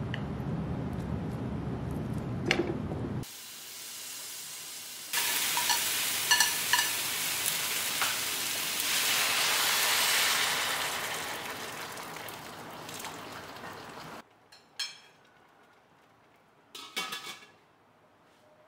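Beef slices, onions and carrots sizzling in a hot stainless steel pan. Several seconds later boiling water is poured into the hot pan, giving a loud steaming hiss with a few clinks that slowly dies away. Near the end there are two brief metallic knocks as the lid goes on.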